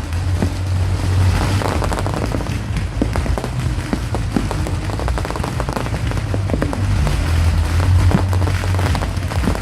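Fireworks going off: many scattered bangs and dense crackling, over a steady low hum.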